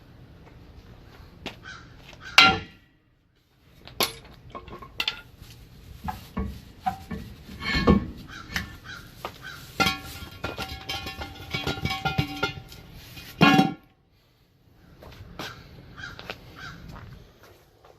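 A bird calls loudly three times, short calls about 2.5, 8 and 13.5 seconds in, with a run of similar calls in between, over scattered clicks and knocks.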